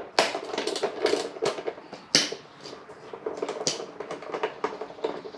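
Irregular sharp clicks and ticks of a small hand tool undoing a 5 mm bolt from the plastic body panel of a Honda Trail 125 motorcycle.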